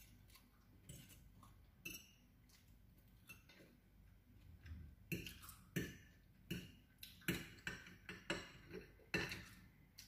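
Metal fork clinking against a ceramic plate as fried noodles are picked up, a few scattered clinks at first, then a run of sharp clinks about every half second in the second half.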